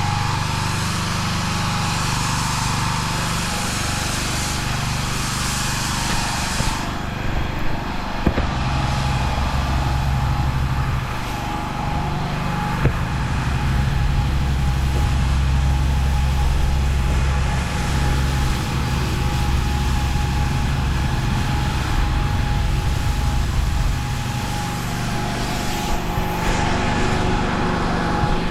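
Pressure washer engine running steadily, with the hiss of the lance spraying water onto block paving. The high part of the spray hiss drops away about seven seconds in and comes back near the end.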